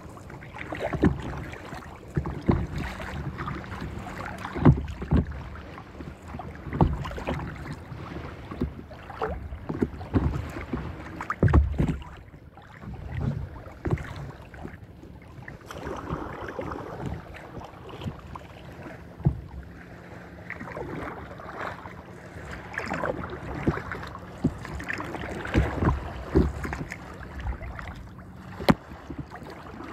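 Paddle strokes and water splashing and lapping against a paddle board's hull, with an uneven splash about every one to two seconds.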